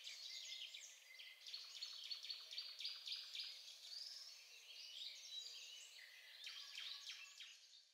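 Faint chorus of songbirds: many quick overlapping chirps and trills, fading out at the end.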